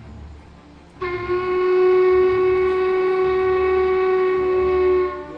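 Jacobite steam locomotive sounding its steam whistle: one long, steady blast of about four seconds, starting about a second in, over the low rumble of the train running.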